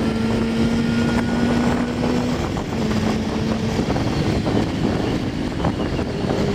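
Yamaha R6 inline-four sport bike engine running at steady cruising revs, with wind and road rush over the microphone. The engine note breaks briefly about two and a half seconds in, then carries on steady.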